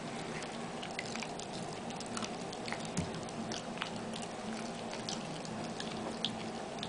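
Miniature pinscher chewing a piece of raw broccoli: small irregular crunching clicks, a few a second, over a steady low room hum.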